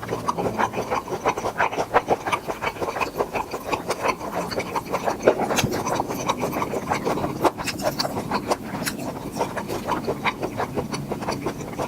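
Close-miked eating sounds: wet chewing, lip smacking and crackling bites as grilled tiger prawns are eaten, a rapid uneven run of clicks throughout.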